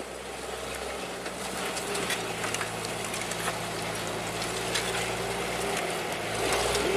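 ZIL-164 truck's six-cylinder side-valve engine running steadily and growing slowly louder, with light rattles and clicks over it.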